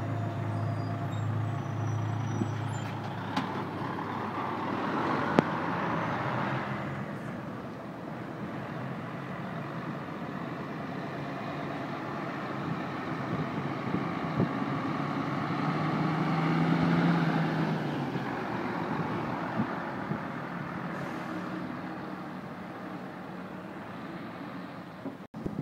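Heavy diesel tractor units, a DAF CF and then a Mercedes-Benz, drive past in turn with engines running and tyre noise. The sound swells as each one goes by, about six and seventeen seconds in, with a brief sharp click about five seconds in.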